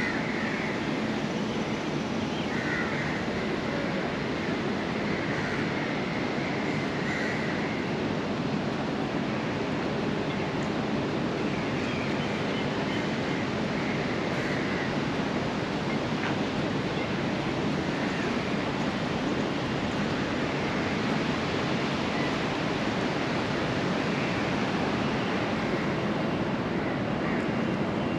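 Steady outdoor ambience: an even rushing noise with no clear single source, with faint higher warbling sounds coming and going every few seconds.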